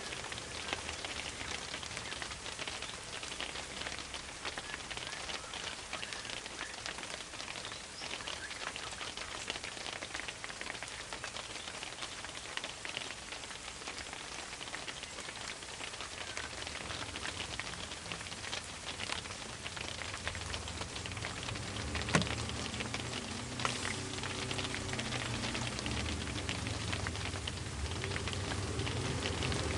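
Dense, steady crackling patter with no speech. A low hum builds up in the last third, and there is one sharp click about two-thirds of the way through.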